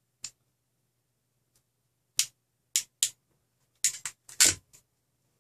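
Hand crimping tool clicking as it works on red stranded wires: sharp separate clicks, one just after the start, then several from about two seconds in, coming closest together near the end.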